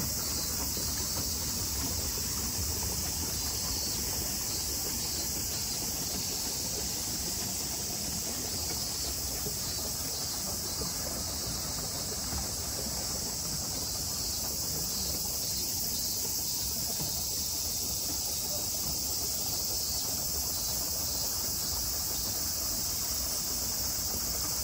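A dense chorus of summer cicadas singing in the trees: one high, steady buzz that doesn't let up.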